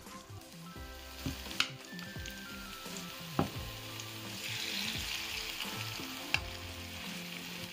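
Zucchini fritter batter sizzling in hot oil in a frying pan, the hiss swelling in the middle as fresh spoonfuls go in, with three sharp clicks of the spoon against the pan. Faint background music underneath.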